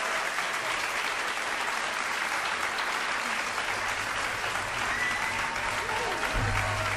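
Concert audience applauding steadily. A low, steady hum comes in about halfway through and grows louder near the end.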